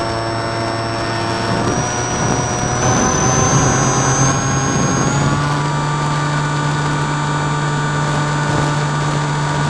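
Drifter ultralight's engine and pusher propeller running in flight, heard from the cockpit. The engine speeds up a couple of seconds in, its pitch rising over about three seconds, then holds steady at the higher revs.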